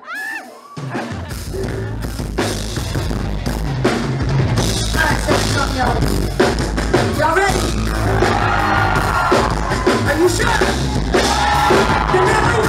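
Live neo-soul band playing: drum kit and bass come in about a second in and run steadily, with a singer's voice over the band from about five seconds in.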